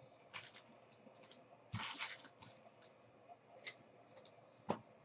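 Faint rustles and light clicks of trading cards being handled and slid off a pack one at a time, with a slightly longer rustle about two seconds in and a few short clicks near the end.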